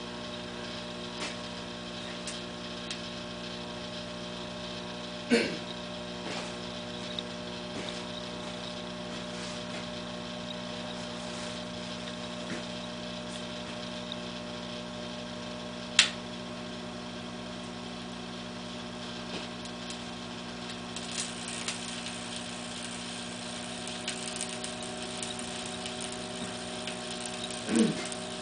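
Microwave oven running with a steady hum while a 9-volt battery inside it arcs and burns, giving scattered sharp cracks and snaps, the loudest about halfway through, and a stretch of fizzing crackle near the end.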